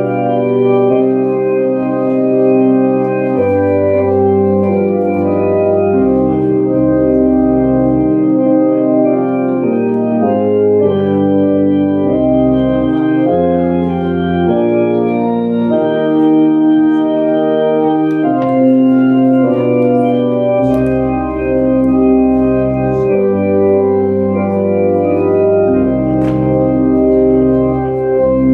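Organ playing a slow hymn verse in held chords, its bass notes changing every second or two.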